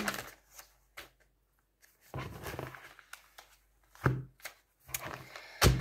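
Pages of a paper notebook being turned by hand: short papery rustles and soft taps, with one sharper knock on the desk near the end.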